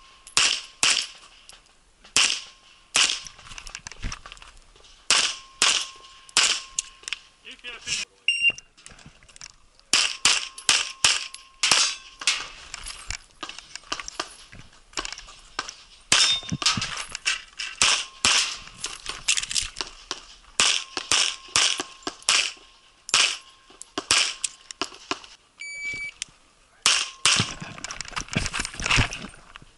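Rapid pistol fire from a single-stack 1911-style competition pistol, heard from the shooter's position: quick strings of shots, mostly in fast pairs, broken by short pauses while moving between positions. Twice a steel target rings briefly when hit.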